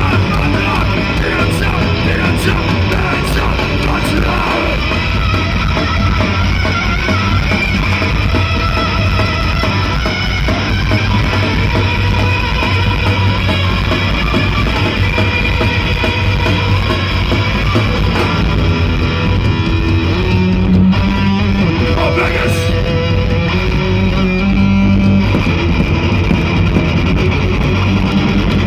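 Hardcore punk band playing live: distorted electric guitars, bass and drums at full volume. About twenty seconds in, the cymbals drop back and held guitar notes ring out.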